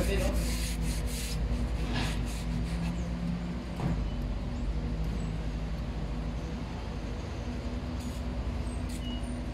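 Diesel engine of construction machinery running steadily, with a couple of light knocks about two and four seconds in.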